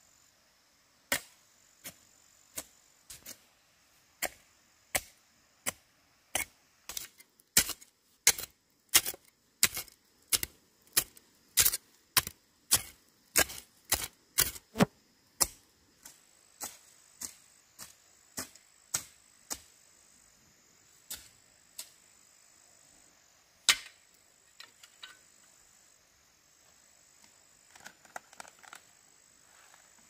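A long run of sharp knocks, about one and a half a second, coming closer together and loudest midway, then thinning out. Insects chirr steadily and high-pitched underneath.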